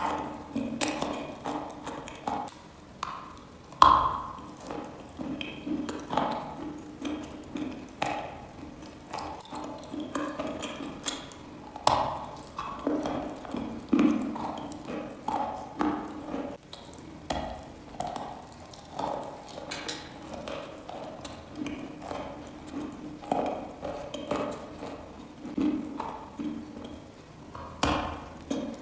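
A chunk of chalk bitten and chewed close to the microphone: a run of irregular crisp crunches, a few a second, with the sharpest bite about four seconds in and another near the end.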